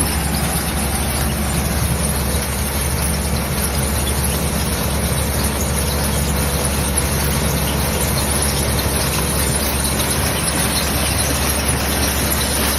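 Onion crusher machine running steadily: a continuous mechanical noise with a strong high-pitched hiss over a low hum.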